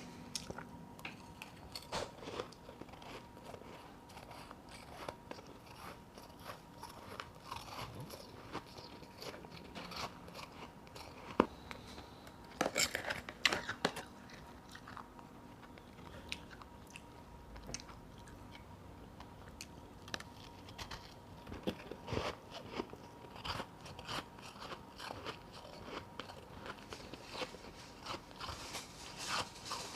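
Powdery ice chunks being bitten and chewed, a run of short crisp crunches with a louder flurry about halfway through.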